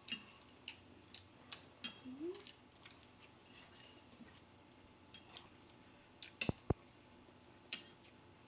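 Close-miked eating sounds: faint wet chewing and mouth clicks, with two sharp knocks about six and a half seconds in.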